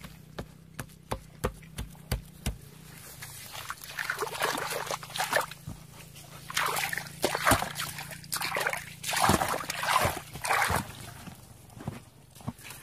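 A small plastic bowl scooping and pouring muddy water, in a run of irregular splashes and sloshes. A few short knocks come in the first couple of seconds.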